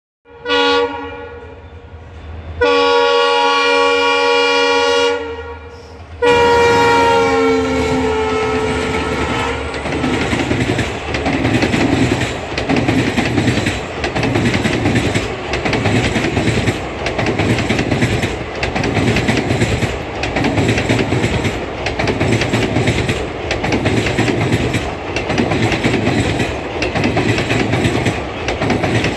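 Indian Railways passenger train passing: the locomotive horn sounds three blasts, the middle one long and steady and the last one sliding down in pitch as it goes by. Then the coaches roll past with a regular clickety-clack of wheels over rail joints.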